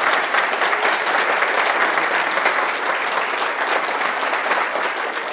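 Audience applauding, many hands clapping together in a dense patter that eases off slightly near the end.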